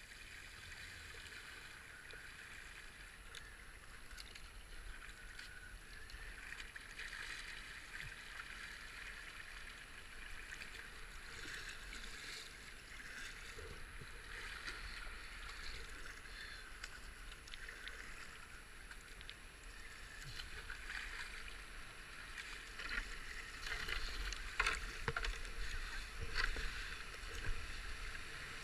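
Paddle strokes splashing and water lapping along a kayak's hull on slow river water. Near the end the rush of water pouring over a concrete river ford grows louder.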